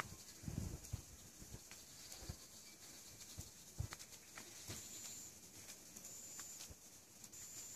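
Faint woodland sounds: scattered soft knocks and clicks in the first half. From about five seconds in, a thin, very high call repeats evenly about every second and a half.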